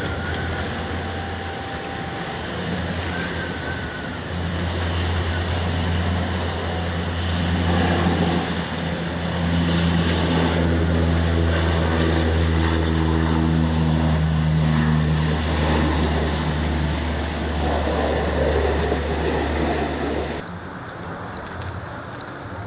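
Firefighting aircraft engines droning steadily with a strong low hum, which cuts off suddenly near the end.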